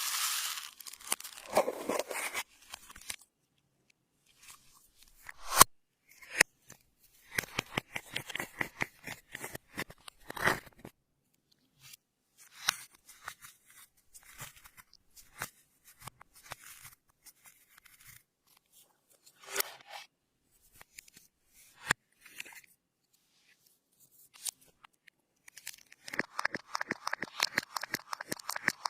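Clear slime being worked by hand, giving bursts of small crackling pops and clicks from trapped air, with short silent pauses between the bursts. A dense run of crackling comes near the end.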